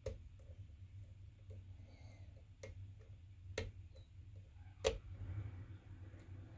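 Small metallic clicks and ticks of a lock pick and tension wrench working the spring-loaded pins of a Spool Master challenge lock, with four sharper clicks spaced about a second apart, the loudest near the end, over a steady low hum.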